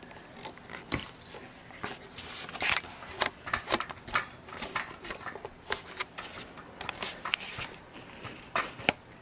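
Plastic Rummikub tiles clicking and clacking as they are picked up, shuffled across the table and set into plastic tile racks, in quick irregular clicks.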